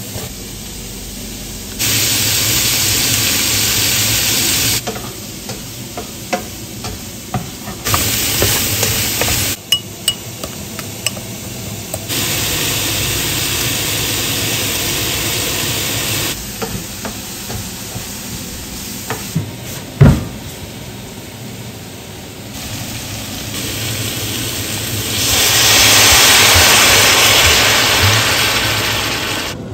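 Chopped vegetables sizzling in a large stainless-steel pot in several spells, with small clicks of stirring and one sharp knock about twenty seconds in. Near the end, liquid is poured into the hot pot and the sizzling is loudest.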